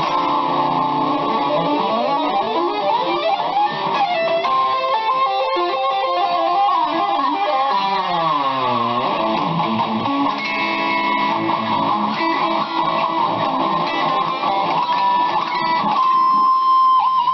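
BC Rich Mockingbird electric guitar with a Floyd Rose tremolo played through a distorted amp in loose rock licks; about halfway through the pitch dips down and swoops back up as with a tremolo-bar dive, and near the end a high note is held.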